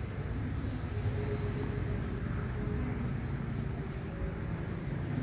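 Insects droning steadily at one high pitch, wavering slightly, over a low rumbling background.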